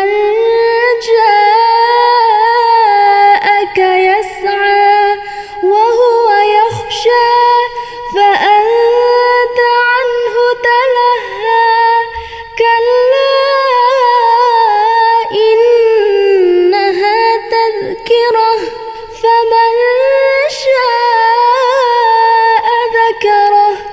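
A woman reciting the Quran unaccompanied in a melodic, ornamented tartil style. She draws out long held notes with winding turns of pitch, with a few short pauses between phrases.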